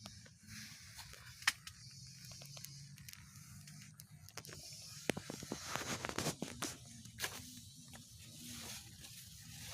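Irregular rustling and sharp clicks, as of plants or objects being handled, over a faint steady low hum. The rustling grows busier about halfway through.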